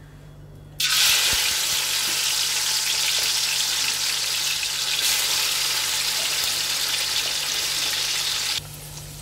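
Marinated prawns frying in hot oil in a wide metal pan. A loud sizzle starts suddenly about a second in as the prawns hit the oil and holds steady, then drops to a quieter sizzle near the end.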